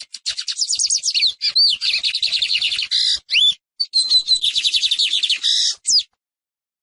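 Lined seedeater (Sporophila lineola) singing: one long song of high, rapidly repeated notes, mostly quick downward slurs with a few rising whistled slurs, which stops about six seconds in.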